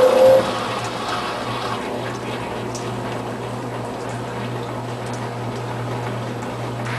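Brastemp Tira-Manchas top-load washing machine: a motor whine cuts off just after the start, then water runs and sloshes in the drum over a steady low hum.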